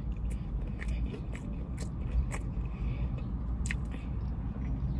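Close-up chewing of fried chicken with lip-smacking: short wet mouth clicks at irregular intervals over a steady low hum.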